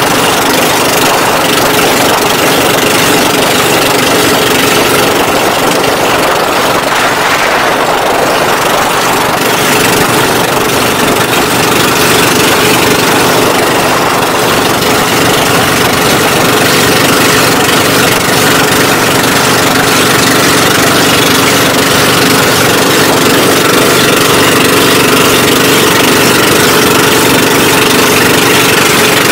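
Engine of a motorised outrigger boat running steadily while underway, a constant loud drone with a steady hum.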